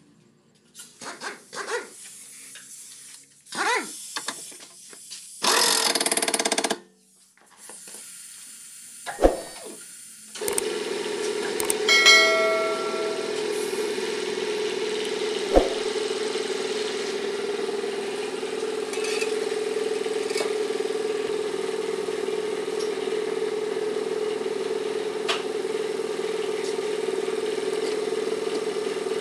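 Scattered knocks, clicks and short scraping noises, then from about ten seconds in a steady motor hum starts and keeps running, with a brief tone soon after it begins.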